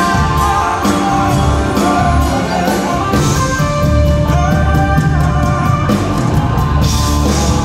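Live rock band playing at full volume: electric guitar lines over bass guitar and drum kit.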